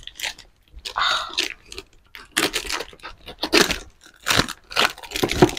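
Plastic shipping wrapping on a parcel being torn and crinkled by hand, then cut with scissors, in a series of short irregular rips.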